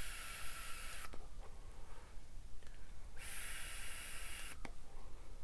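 Two draws on a box-mod e-cigarette, each a steady high hiss of air pulled through the atomizer. The first ends about a second in; the second runs from about three to four and a half seconds in. Each ends with a short click.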